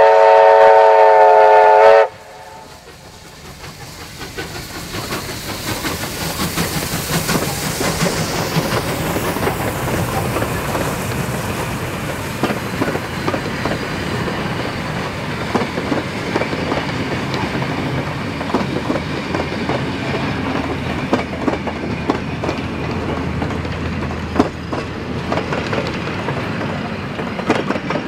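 Steam whistle of ex-Victorian Railways J class 2-8-0 locomotive J549, a steady chord of several tones, cuts off about two seconds in. The train then passes, working hard, and its wooden carriages' wheels click over the rail joints in a dense, steady run of clicks as it goes by and draws away.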